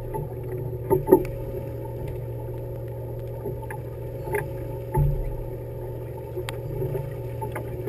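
Fishing boat's engine running with a steady low hum. A couple of sharp knocks come about a second in, and a heavier thump at about five seconds.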